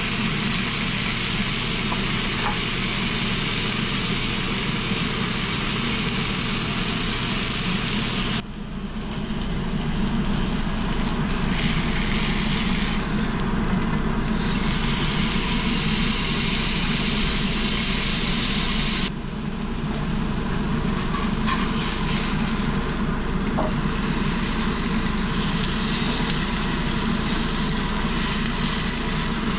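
Porterhouse steak sizzling in a hot cast-iron skillet as it is pan-broiled and turned with tongs. The sizzle is steady, drops off abruptly twice and builds back up each time.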